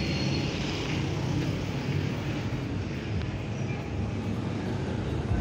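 A steady low vehicle rumble, with a thin high whine that stops about half a second in.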